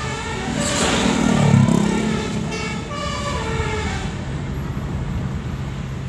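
A tour bus's telolet horn, a set of musical air horns, playing a tune of stepped notes for about three seconds and then stopping. A louder rush of noise swells about a second and a half in, and a steady engine hum with road noise carries on underneath.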